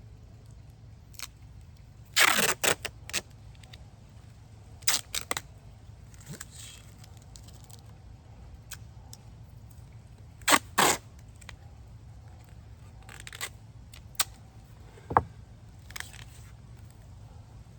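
Duct tape being pulled off the roll and torn, in short loud rips about two seconds in and again around ten seconds. Between them are smaller crackles, clicks and a sharp tap from handling the tape and binder.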